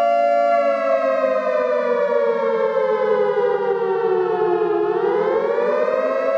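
Emergency alert (EAS) alarm siren: a loud, steady chord of tones that glides slowly down in pitch for about four seconds, bottoms out near the end, then climbs back up.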